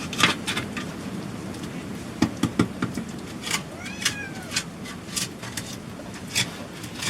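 A cat meows once, an arched call about four seconds in, over a scatter of sharp knocks and taps.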